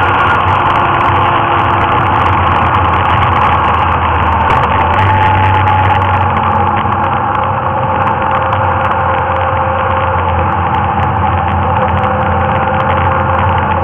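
Motorcycle engine running steadily while riding along a winding road, its note dipping slightly about halfway through.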